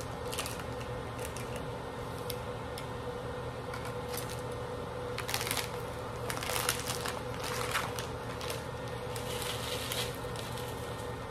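Plastic seasoning sachets and the instant-ramen packet crinkling and rustling as they are handled and torn open, loudest in clusters about five to eight seconds in, then a packet's contents shaken into the pot near the end. A steady low hum runs underneath.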